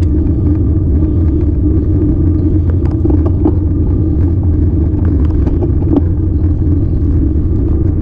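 Steady low rumble of wind buffeting and tyre noise picked up by a bicycle-mounted camera riding slowly uphill on a grooved concrete road, with scattered faint clicks.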